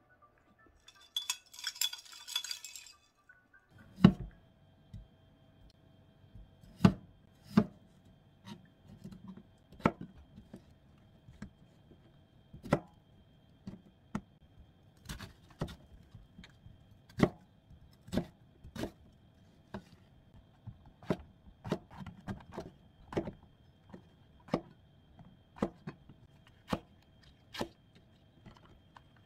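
Kitchen knife cutting vegetables on a plastic cutting board: sharp knocks at an uneven pace, roughly one or two a second. Before the cutting starts there is a brief clinking rattle.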